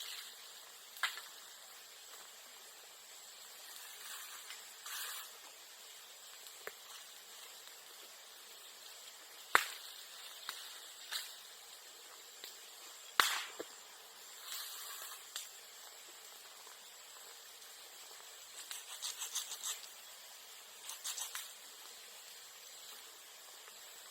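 Bamboo and bamboo grass burning in a bonfire: a steady low crackle and hiss with scattered pops, two loud sharp cracks near the middle, and short runs of rapid crackling near the end.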